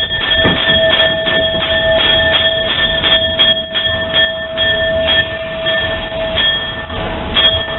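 Cab of a 0-8-0 tank steam locomotive moving slowly: a steady high whine over a stream of short knocks and hisses, which come less often after the first few seconds.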